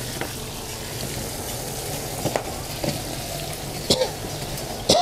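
Steady crackling hiss with a few light clicks and knocks as small fresh chillies are handled and scooped out of a cardboard box with a metal colander.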